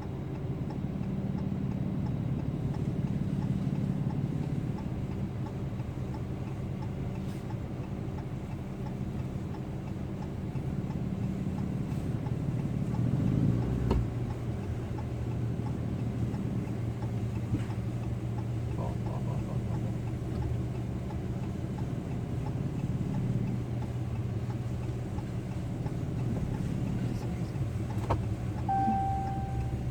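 An engine running steadily at idle, with a few sharp knocks and a short high beep near the end.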